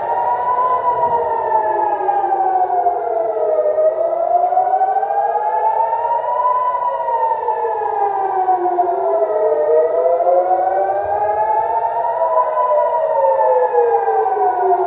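Civil-defence air raid sirens wailing, rising and falling slowly in pitch about once every six seconds. This is the rocket-alert warning of an incoming missile attack, the signal to run to a shelter.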